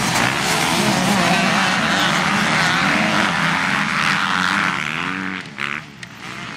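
A pack of motocross dirt bikes revving hard together, the engine pitches rising and falling as they accelerate through a corner. The sound drops away briefly near the end.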